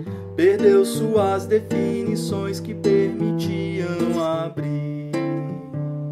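Acoustic guitar playing a slow song, its picked chords changing every second or so. A voice sings over it from about half a second in to about four and a half seconds.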